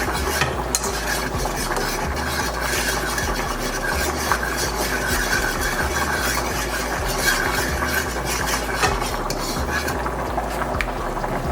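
A utensil stirring a honey-teriyaki garlic-butter sauce in a skillet, clicking and scraping against the pan now and then, over the sizzle of the hot sauce.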